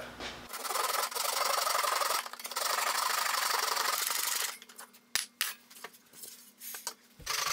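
Japanese double-edged pull saw cutting a piece of wood in a miter box, with steady rasping strokes of the blade through the wood. About two-thirds of the way in the sawing stops for a few seconds, leaving a few light taps, then starts again near the end.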